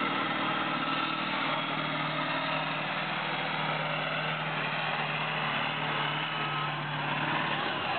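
Massey Ferguson 2805 tractor's turbocharged eight-cylinder diesel of just over 11 litres, running hard under full load as it pulls a weight-transfer sled. The engine note is steady and deep.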